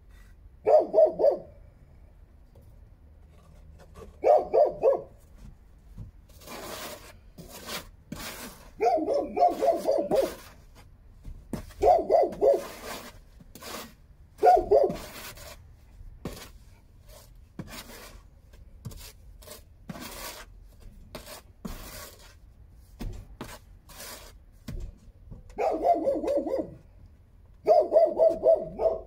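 A dog barking in short bursts of a few barks each, about seven times. Between the bursts, a run of sharp scrapes and knocks.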